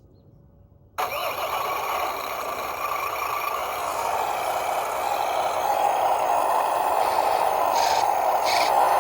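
Simulated truck engine from the electronic sound module of a WPL C24-1 RC truck, cutting in suddenly about a second in and then running steadily, growing a little louder. A few short hissy bursts come near the end.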